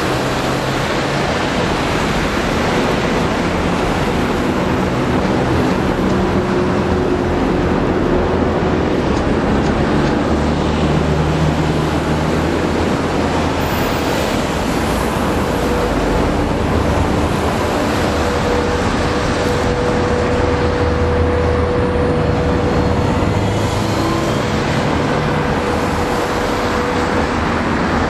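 EMD diesel-electric locomotive engines running, their engine note shifting up and down as a locomotive moves through the yard. A steady whine joins in about halfway through.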